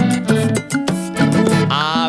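Puerto Rican plena music: an instrumental passage with a steady, evenly spaced percussion beat over a bass line, and a singing voice coming in near the end.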